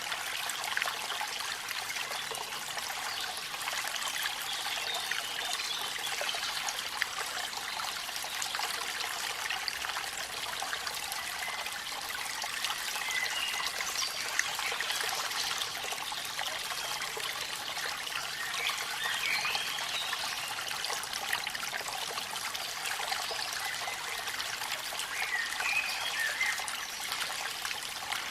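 Steady splashing and trickling of a waterfall and stream, with a few faint high chirps now and then.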